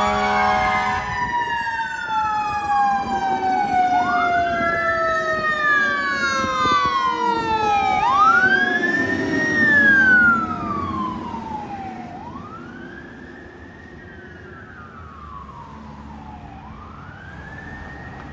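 Fire engine siren wailing, its pitch rising and falling about every four seconds, overlapped by a second siren tone gliding slowly down. It grows fainter about ten seconds in.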